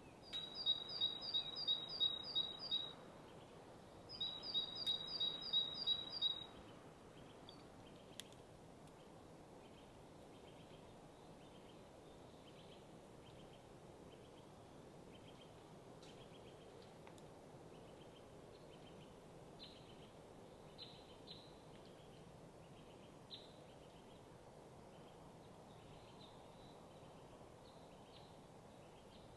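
A small songbird singing two short phrases of quickly repeated high, two-pitched notes, followed by faint scattered chirps over a steady low hiss of outdoor background noise.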